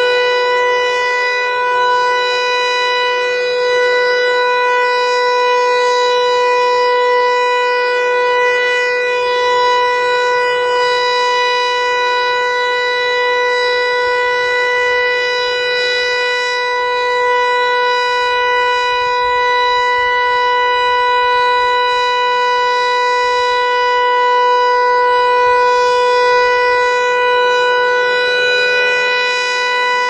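Federal Signal Eclipse-8 electronic outdoor warning siren sounding its steady alert signal: one loud, unwavering tone with strong overtones.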